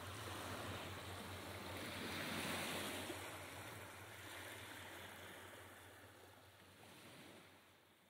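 Sea waves washing onto a beach, swelling about two and a half seconds in, then fading away, with a last smaller swell near the end.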